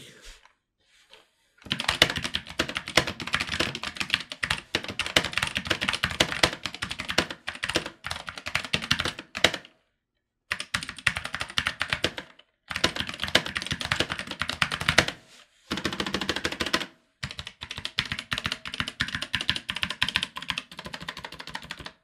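Keychron K8 mechanical keyboard with Keychron brown optical tactile switches being typed on fast. The key presses come in runs of a few seconds each, with short pauses between them.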